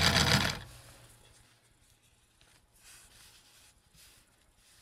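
Kenmore 158 sewing machine running a straight stitch through stretch knit fabric, stopping about half a second in. After that there are a few faint rustles of the fabric being moved.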